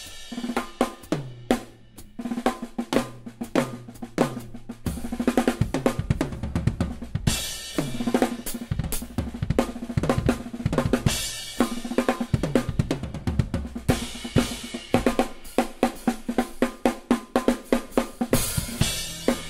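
Drum solo on an acoustic drum kit: fast snare and tom fills over bass drum, with crash cymbals hit every few seconds.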